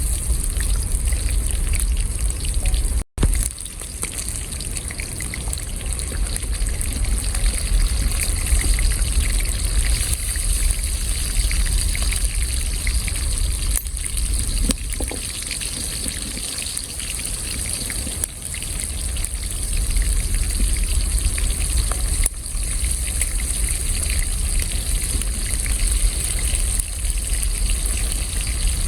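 Water trickling and gushing steadily, with a low rumble underneath; the sound cuts out for an instant about three seconds in.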